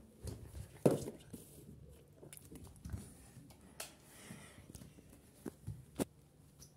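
Handling noise from a handheld phone being moved about: scattered knocks and rustles, with the loudest thump about a second in and another sharp knock about six seconds in.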